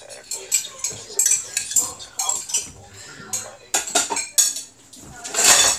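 Kitchen utensils clinking and scraping against pots and dishes in a run of short, irregular knocks, with one louder, longer scrape about five seconds in.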